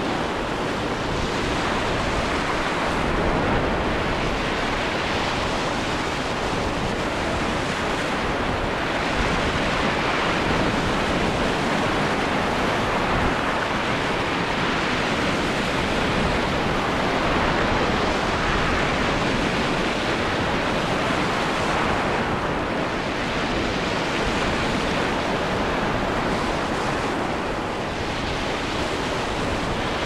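Rough sea in a strong wind: a steady rush of choppy, breaking waves and wind, swelling and easing slightly.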